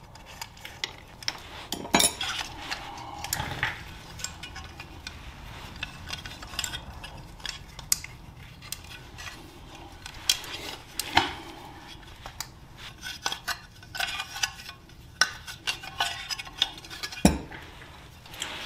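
Scattered metal clinks and taps of hand tools and motorcycle parts being handled as the clutch cable is worked out of the sprocket cover. A few louder knocks stand out: about two seconds in, near the middle, and near the end.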